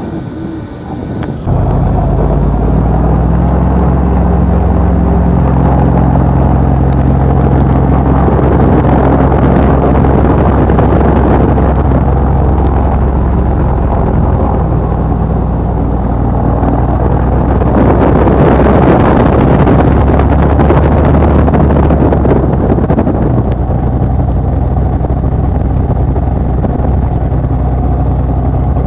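Cessna L-19 Bird Dog tow plane's six-cylinder piston engine running loud, heard from inside its cockpit. It starts suddenly about a second and a half in, its note shifts in steps, and it swells with rushing noise for a few seconds past the middle.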